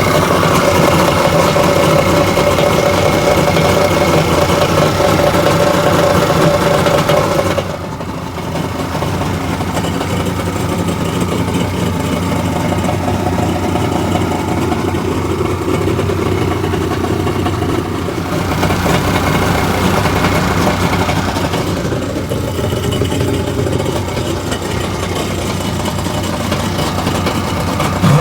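1998 Kawasaki STX-1100 jet ski's three-cylinder two-stroke engine running steadily, its pitch and level dropping about a third of the way through and picking up slightly again later.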